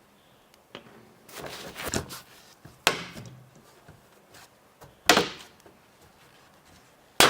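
Hard knocks and a short clatter of PC parts being handled and set down during assembly: a rattle about a second and a half in, then three sharp knocks about two seconds apart.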